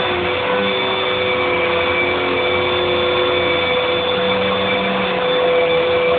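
A steady machine drone with a constant whining tone and no change in speed.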